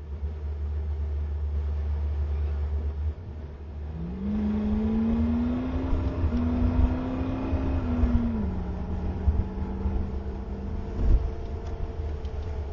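Car engine and drivetrain: a steady low rumble, then from about four seconds in a whine that rises in pitch as the car accelerates, holds, drops at about the middle and runs level. A short knock comes near the end.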